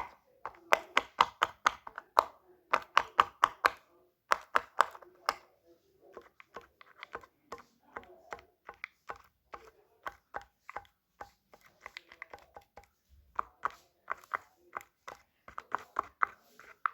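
Fidget toy being clicked and popped by hand in quick runs of sharp clicks, about six to eight a second. The clicks are louder for the first few seconds, softer in the middle and louder again near the end.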